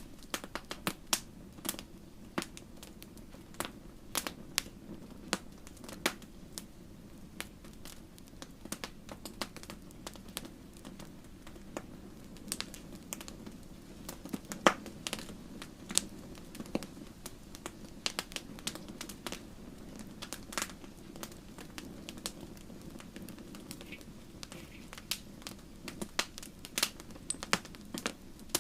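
Wood fire burning in a fireplace: irregular sharp crackles and pops over a steady low rumble of the flames, the loudest pop about midway.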